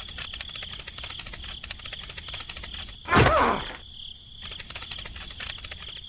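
Cricket-chirping ambience: a steady high trill over dense fast ticking. About three seconds in, a short, loud cartoon sound effect falls steeply in pitch, like a voiced groan.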